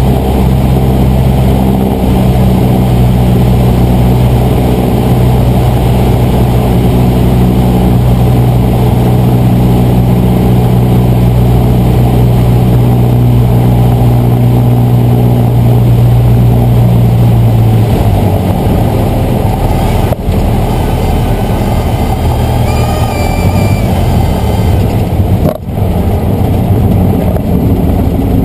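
Cessna 150's four-cylinder Continental O-200 engine and propeller running steadily at approach power, over heavy rushing air noise. About two-thirds of the way through the steady engine note falls away as the throttle comes back to idle for the landing, and a short high whine sounds a few seconds later.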